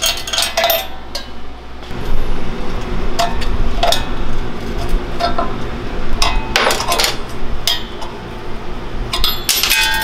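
Hand tools and loose bolts clinking and clanking on a steel mini bike frame and metal work table during disassembly: irregular sharp metallic knocks over a steady low hum.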